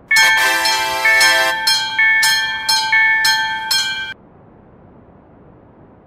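Railroad crossing warning bell ringing in quick, bright metallic strikes, about two a second, then cutting off suddenly about four seconds in.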